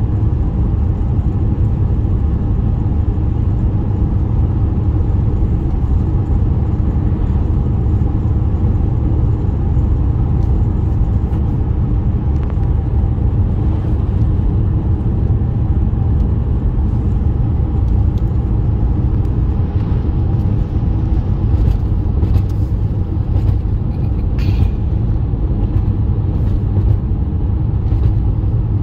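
Steady low rumble of a car on the move, engine and road noise, with a few light clicks late on.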